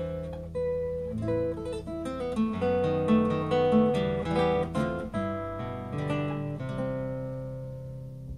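Solo nylon-string classical guitar played fingerstyle: a plucked melody over a moving bass line, with a chord left to ring and fade near the end.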